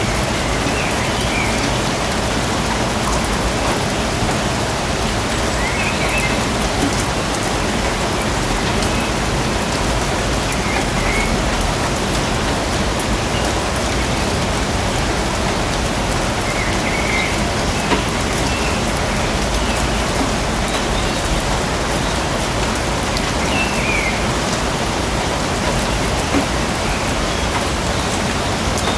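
Steady rain falling on a forest: a dense, even patter with scattered single drops standing out now and then.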